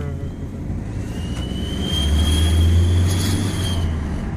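Aftermarket 'turbo whistle' fitted in the exhaust of a 2014 Ford Focus, whistling as the car accelerates: a high, thin whistle that rises slowly in pitch for about three seconds and then fades, over the engine's low drone, which swells in the middle.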